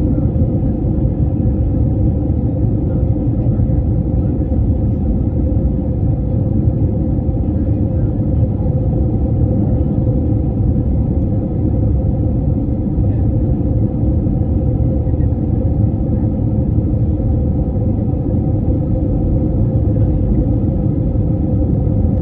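Steady, loud drone of a jet airliner's cabin in flight: a deep rumble with a constant hum running through it.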